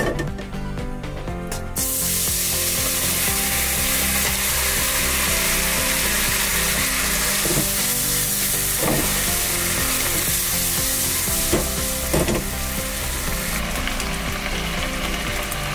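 Sauce sizzling and bubbling in a hot nonstick frying pan. The sizzle starts suddenly about two seconds in, as the liquid goes into the pan. A spatula stirs and scrapes through it a few times near the middle.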